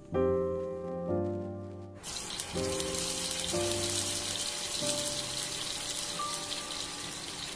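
Egg patties sizzling in hot oil in a frying pan, the sizzle starting suddenly about two seconds in, under background music.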